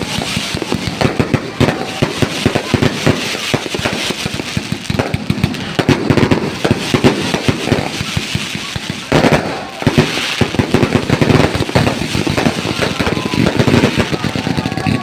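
Fireworks going off in a rapid, continuous string of bangs and crackles, with no break, like a barrage of firecrackers.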